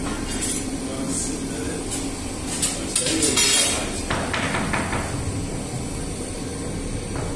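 Metal clinks and scrapes from a baker's long metal oven peel working at a bread oven mouth, mostly about two and a half to five seconds in, over a steady low machine hum.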